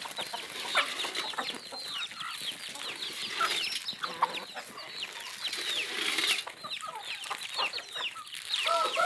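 A flock of chickens clucking and giving many short, high calls that fall in pitch. About a second before the end, a rooster starts a long crow.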